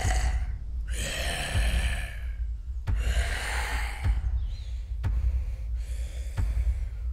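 A young woman breathing heavily, about five long audible breaths in and out, with a few faint thumps between them.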